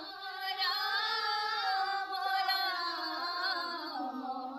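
Group of women singing a devotional chant (ghosha) in unison, long held notes slowly rising and falling in pitch, trailing off near the end.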